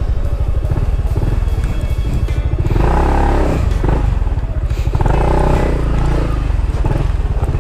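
Background music, with a melodic line coming in about three seconds in and again near five and a half seconds, over the low running of a Honda Forza 300 scooter's engine as it rolls slowly along.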